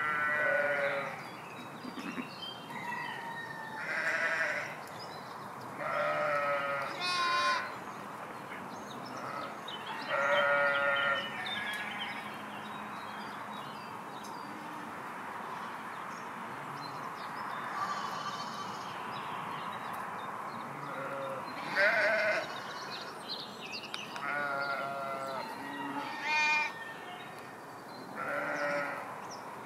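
Sheep in a grazing flock bleating, ten or so separate calls spread through, some with a quavering pitch.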